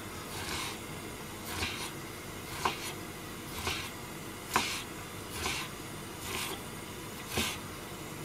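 Kitchen knife slicing raw fish on a wooden cutting board: about eight slow strokes, one roughly every second, each a short cut ending in a light knock of the blade on the board.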